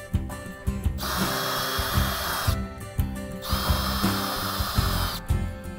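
Cordless drill with a square-drive bit driving lag screws through a metal post-mounting bracket into a wooden stair tread, in two runs of about a second and a half each: a steady motor whine with the screw biting into the wood.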